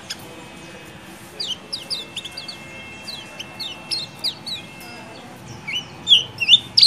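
A kecial kuning (lemon-bellied white-eye) giving its 'ciak-ciak' chirps. Short, sharp, high notes come in scattered from about a second and a half in. Near the end they turn into a louder, rapid run of chirps.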